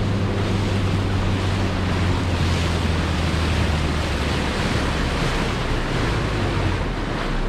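Stabicraft 2050 Supercab's outboard motor running with a steady low hum, under a strong rush of wind on the microphone and water noise. The hum shifts a little near the end.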